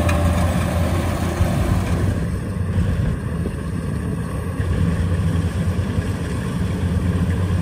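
Diesel engine of rice-harvesting machinery running steadily with a deep hum; the sound dulls a little for a few seconds in the middle.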